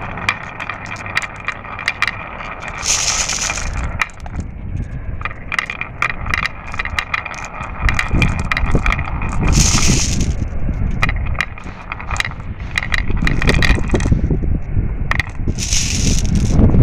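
Glass marbles rolling down a marble run, clicking and clacking against the track and each other with a ringing tone, over a steady rolling rumble that grows louder in the second half. A short hiss comes three times, about six seconds apart.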